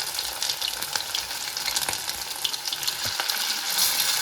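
Chicken pieces frying in hot olive pomace oil in a pan: a steady sizzle with scattered crackles and spits, with a few light knocks about three seconds in. The sizzle grows louder near the end.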